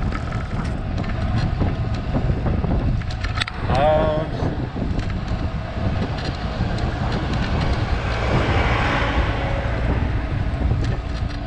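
Wind buffeting the microphone of a camera on a moving bicycle, a steady low rumble with road noise. A short wavering pitched sound comes about four seconds in, and a rising then falling rush of a passing vehicle comes near the end.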